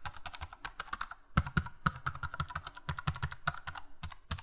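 Typewriter keys clacking in a quick, irregular run of strikes, with a few louder strikes among them.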